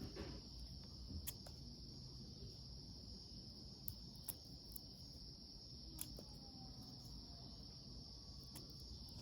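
Faint, steady, high-pitched chirring of crickets, with a few soft clicks from the multitool being handled.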